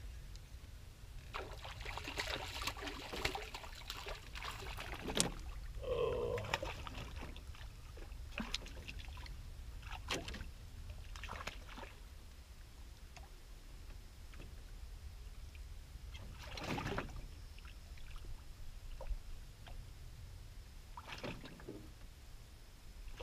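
Canoe on the water: scattered splashes and sharp knocks over a low steady rumble.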